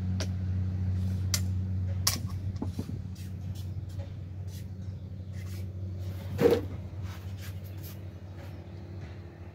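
Wooden xiangqi pieces clacking on the board as they are moved and picked up: sharp single clicks every second or so, with one louder knock about six and a half seconds in. Under them a steady low engine-like hum slowly fades.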